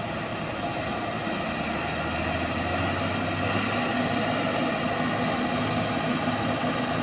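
Heavy diesel engine running steadily under load, from a Caterpillar motor grader towing a loaded dump truck out of a ditch by cable; it gets a little louder after the first couple of seconds.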